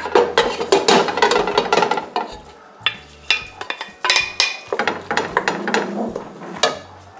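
Stainless steel strainer clattering against the rim of a pot as drained egg noodles are tipped in, then a wooden spoon knocking against the pot as the noodles are stirred. Dense clatter for about the first two seconds, then single knocks every half second or so.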